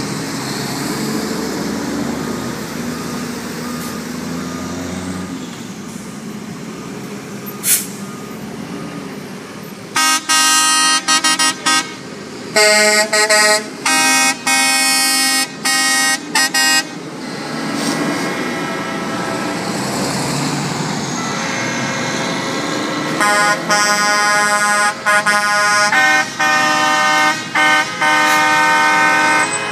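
A slow line of tow trucks passing, engines running, then truck air horns sounding in a run of long and short blasts about ten seconds in and again from about 23 seconds.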